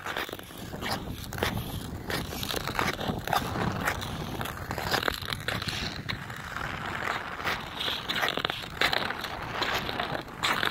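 Ice skate blades scraping and crunching over frozen pond ice in irregular strokes, heard close to the ice.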